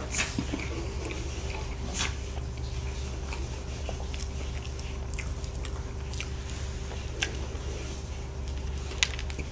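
Close-miked chewing and biting of soboro bread, with scattered crisp crackles from its crumbly streusel topping. A steady low hum runs underneath.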